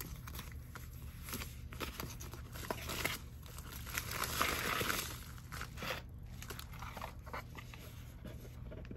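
Plastic mailer bag and paper packaging crinkling and rustling as they are handled, loudest about four to five seconds in, with scattered small taps and clicks.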